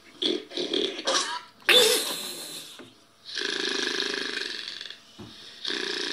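An old man snoring: two long, rattling snores, the second starting near the end, after several short, irregular noises in the first few seconds.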